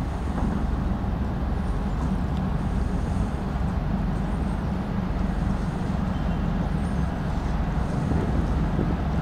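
The diesel engines of the thousand-foot Great Lakes freighter Paul R. Tregurtha running as it passes, a steady low drone.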